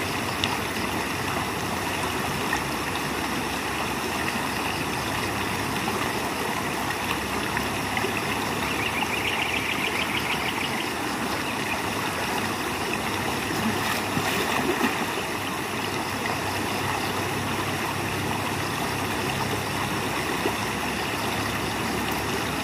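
Shallow stream running over stones, a steady rushing of water. A short, high, rapidly pulsing trill comes through about nine seconds in.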